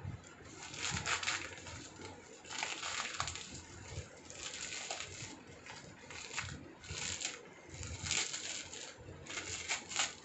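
Thin plastic packaging crinkling and rustling as it is handled and unwrapped, in repeated short bursts of crackle every second or two.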